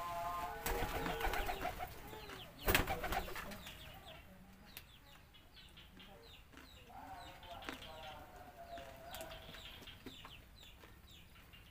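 Birds calling around a backyard: small birds chirping again and again, with chickens clucking now and then. One loud sharp sound about three seconds in.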